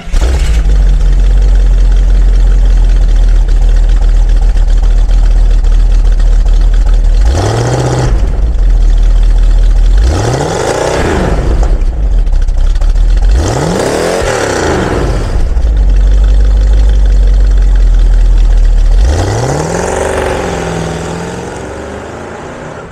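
1971 Dodge Challenger R/T's 340 V8 idling through its dual exhaust, blipped four times with the revs rising and falling, the last rev held as the car pulls away and the sound fades near the end.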